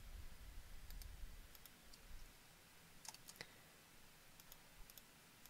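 Faint computer mouse clicks, a few scattered single clicks with the loudest pair about three seconds in, over quiet room tone.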